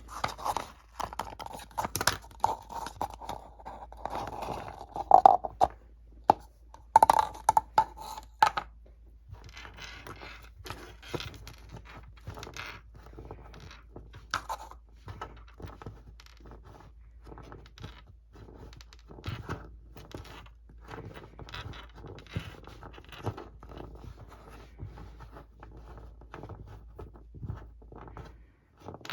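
An eraser rubbing and scraping on a surface in many short scratchy strokes and taps, louder and squeakier in the first eight seconds, then softer.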